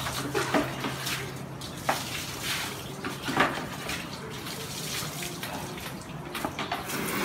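Water splashing and sloshing while a dog is bathed and scrubbed by hand, in irregular splashes.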